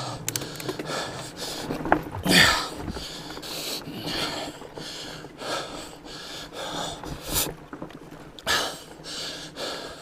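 A rider breathing hard, panting in and out about once a second while pedalling a fat bike over rough ground, with a few sharp knocks from the bike on rocks.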